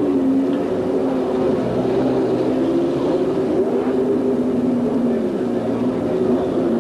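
Racing car's Cosworth DFV V8 engine running, its revs dipping and wavering up and down.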